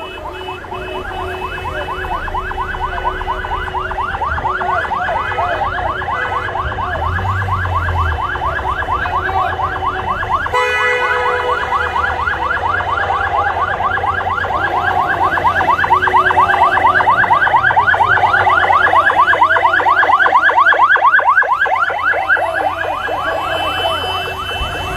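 Electronic vehicle siren in a fast warble, sweeping up and down several times a second, sounding continuously over steady horn-like tones, with an abrupt jump in the sound about ten seconds in.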